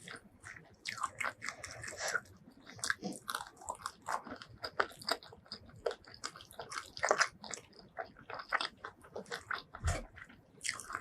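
Close-miked chewing and biting of crispy fried food, with a steady run of irregular crisp crunches.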